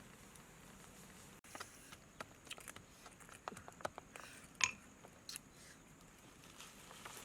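Chewing: scattered small wet clicks and crunches of food being eaten, with one sharper crack a little past halfway.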